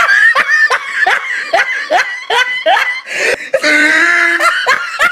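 A person laughing hard in quick repeated high-pitched bursts, with a longer held squeal a little after the middle.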